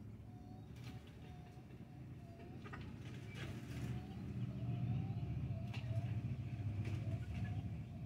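Low rumble of a vehicle engine that grows louder about halfway through and stays up, with a string of short, soft bird calls repeating over it and a few light clicks.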